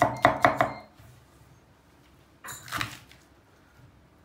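Chef's knife chopping red peppers on an end-grain wooden cutting board: quick knocks about four a second, stopping after about a second. A brief rustling scrape about two and a half seconds in.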